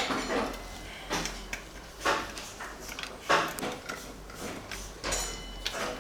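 Short scraping and clattering handling noises, about five of them roughly a second apart, as of tools or parts being moved about.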